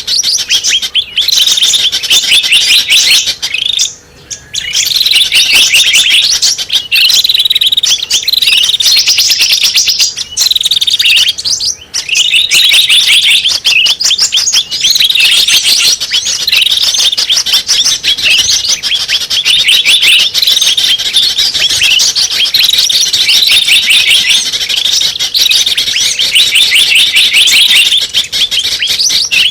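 Small songbirds chirping rapidly and continuously, a recorded lure call (suara pikat) for attracting small birds. The high, dense chirping comes in repeating phrases about once a second, each ending in falling notes, with a short break about four seconds in.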